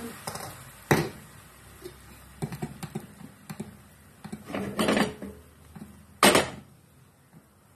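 Non-stick frying pan clattering on a gas stove as it is handled, with two loud clanks, one about a second in and one about six seconds in, and a burst of lighter clatter just before the second.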